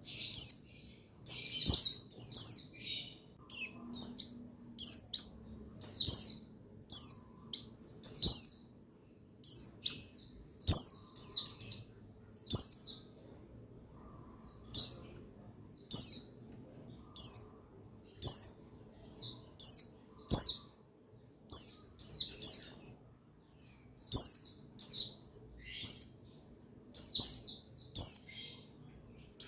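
Oriental white-eye (pleci buxtoni) twittering in quick, high chirping phrases, one after another with short pauses: a call meant to rouse males to sing.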